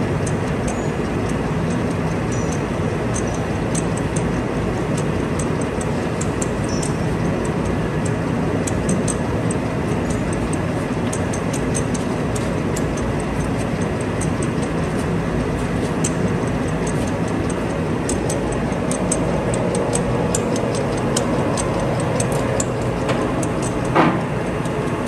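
Warner & Swasey 5A saddle turret lathe running with a steady mechanical hum, with scattered light ticks and clicks as its turret is turned by hand, and one sharper knock near the end.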